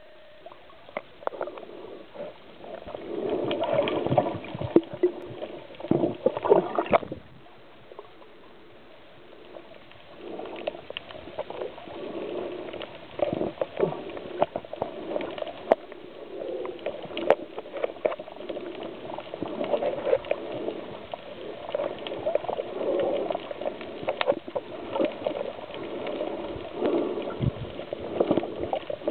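Bubbling and gurgling water heard underwater, with scattered sharp clicks. It comes in uneven surges and drops away for a few seconds about a quarter of the way through.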